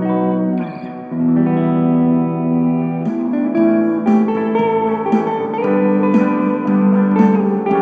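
Electric guitar played through an Orange Micro Terror valve-preamp amp head with reverb: held chords ringing out, then from about three seconds in a gentle jam of picked notes and strums.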